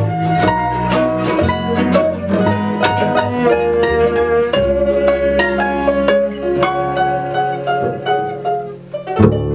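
Instrumental acoustic folk music: ukuleles picking and strumming over a violin and an upright double bass. Near the end the playing drops off briefly, then the whole band comes back in louder.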